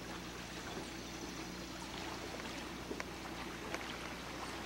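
Lake water lapping and splashing gently, with a few small splashes over a faint steady low hum.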